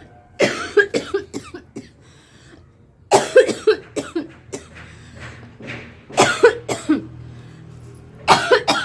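A woman coughing in four fits, each a quick run of several sharp coughs, spaced a few seconds apart.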